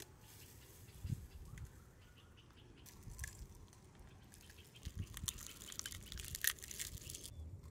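A few sharp taps and cracks as eggs are broken into a tray of flour-coated fish.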